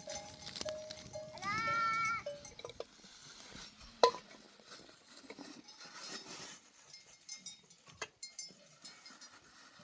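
One bleat from the flock's livestock, rising and then held for about a second, about a second and a half in, followed by a sharp metallic clink about four seconds in and a fainter knock near eight seconds.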